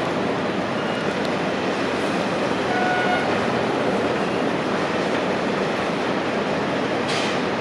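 Steady noise of heavy construction machinery with no distinct rhythm, and a brief faint whine about three seconds in.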